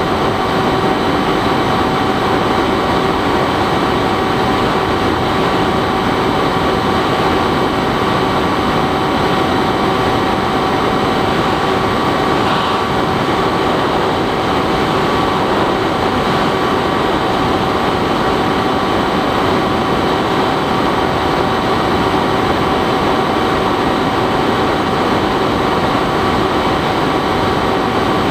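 Bixler 3 RC plane's electric motor and propeller in steady cruise, a constant whine with a few fixed tones over rushing airflow noise.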